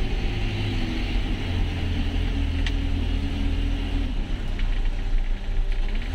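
Campervan bus's diesel engine running at low speed, a steady low hum whose note slowly falls over the first few seconds. A single sharp click about two and a half seconds in.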